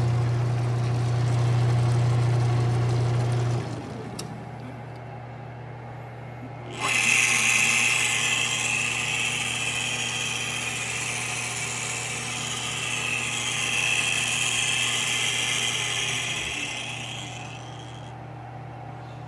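An Emco Maximat machine's electric drive running with a steady low hum that stops about three and a half seconds in. A few seconds later the 4-speed milling head starts up with a high whine, runs for about ten seconds, then winds down.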